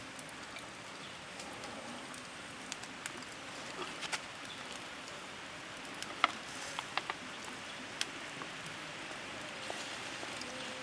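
Beef ribs grilling over a fire: a steady sizzling hiss with scattered sharp pops and crackles, the loudest about six seconds in.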